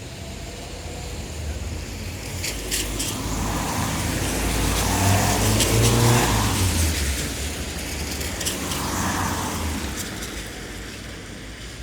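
Car passing on a wet road: tyres hiss through surface water over a low engine rumble, building to its loudest about six seconds in and then fading away.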